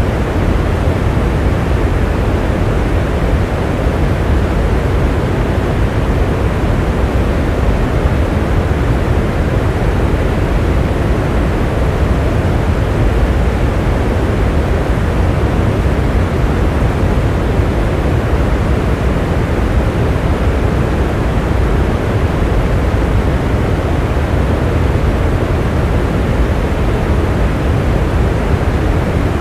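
Steady heavy rain, a dense, even hiss with a deep low rumble and no separate drops or thunder standing out.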